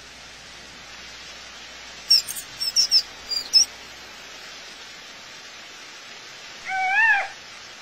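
Steady outdoor hiss with a quick run of short, high chirps about two seconds in, then one short pitched call that rises and falls near the end.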